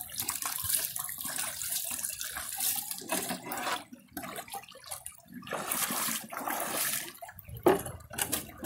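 Creek water splashing and pouring as a small plastic sluice box is dipped and rinsed over a bucket, washing gold concentrates out of its deep riffles. Irregular splashes, with a sharp knock near the end.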